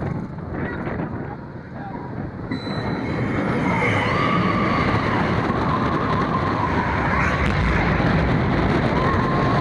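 Zierer launch roller coaster train running along its steel track: a steady rumble of wheels that grows louder about two and a half seconds in as it enters the enclosed show building, with a wavering high tone over it from about four seconds in.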